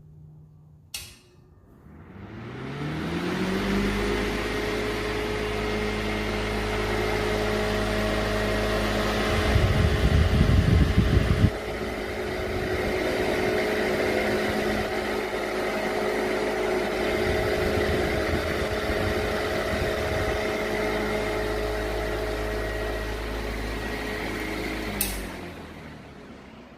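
Restored electric fan switched on with a click about a second in, its motor humming up to speed over about two seconds and then running steadily, with a louder, rougher stretch of a couple of seconds in the middle. Near the end it is switched off with a click and the hum falls away as the fan winds down.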